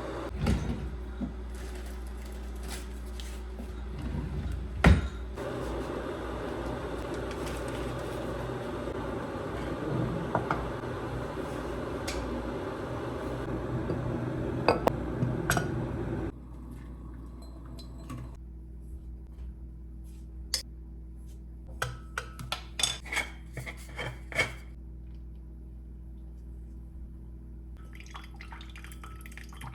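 Kitchen clatter of dishes and utensils, with clinks and knocks. A steady rushing noise runs through the first half and stops abruptly about halfway. The second half holds sharper clusters of clinks.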